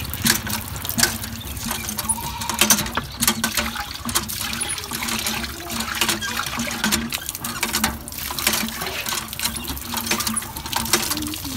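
Water splashing and pouring as boiled rice and its cooking water are tipped from a metal pot into a cloth strainer, with water running from a hand pump's spout into a metal bowl. Frequent sharp clinks and knocks of the metal pots run through it.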